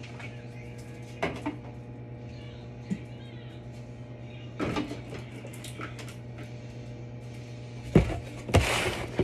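Aluminium soda cans being set onto refrigerator shelves: scattered knocks and clinks, a sharp knock near the end, then a louder scrape, over a steady low hum.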